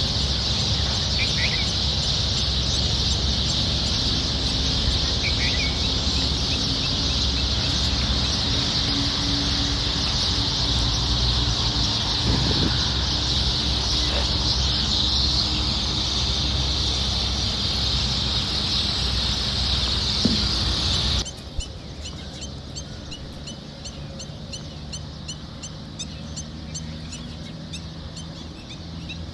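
Outdoor lakeside ambience: a steady high-pitched hiss over a low rumble, with a few short bird calls. About 21 seconds in, the sound cuts abruptly to a quieter background with a quick series of short high chirps.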